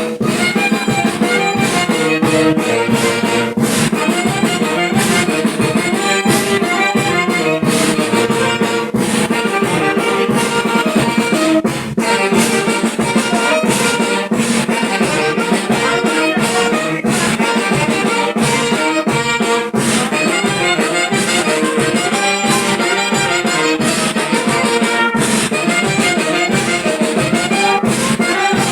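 Brass band music: trumpets and trombones playing over drums, with a steady beat throughout.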